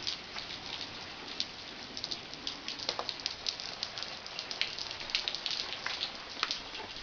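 Rain falling and pattering on surfaces just after a hailstorm, a steady hiss dotted with many irregular sharp taps of drops.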